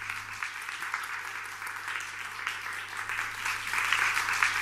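Audience applauding at the close of a talk, the clapping growing louder in the last second or so.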